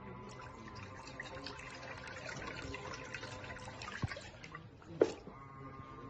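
Foldable mini washing machine agitating a load of a quilt and towels: water sloshing and trickling in the tub, with little motor noise heard over it. Two sharp knocks sound about four and five seconds in, the second the loudest.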